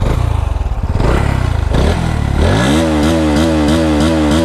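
Bajaj NS200 BS6 single-cylinder engine running in neutral, low and lumpy at first, then revved hard about two seconds in up to full RPM and held there, its pitch wavering about twice a second.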